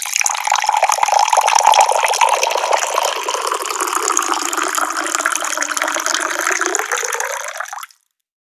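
Water pouring from a tap in a steady gush, stopping suddenly just before eight seconds in.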